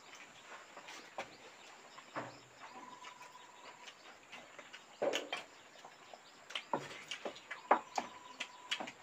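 Close-up eating sounds of people eating rice and fish by hand: chewing, lip smacks and small clicks scattered throughout, with a short rustling burst about five seconds in. A thin steady tone sounds twice, about a second each time.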